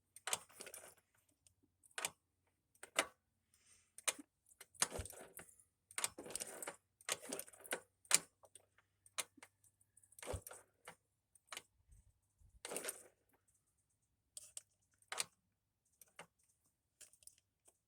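Irregular clicks and clatter of small hard objects being handled, with a few longer rattling patches: tools and parts being moved about during hands-on work on the scooter's fuel system.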